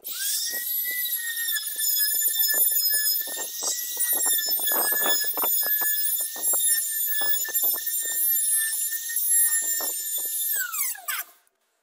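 Trim router running with a steady high whine, its bit cutting a circular groove into a wooden board, with irregular rasping bursts each time the bit bites the wood. The motor spins up at the start and winds down with a falling whine near the end.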